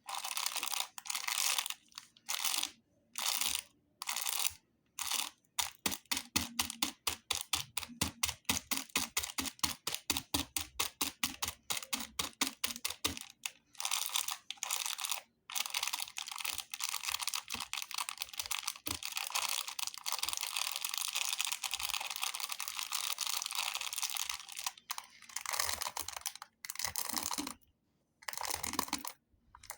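Plastic candy wrappers crinkling in bursts, with a run of rapid, evenly spaced crinkles in the middle and then a long continuous stretch of crinkling.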